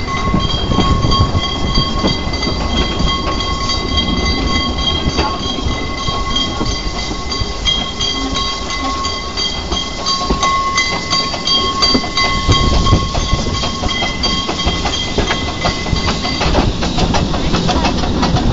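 Saxon IV K narrow-gauge steam locomotive running, heard from its cab: a steady clatter of the running gear and rails with steam noise. A steady high ringing tone sounds over it and stops about 16 seconds in.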